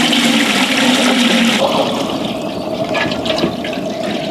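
Water gushing from a large plastic jug into a wide aluminium cooking pot, the stream splashing into the pot. About a second and a half in, the bright splashy hiss drops away and a duller, steady pour carries on.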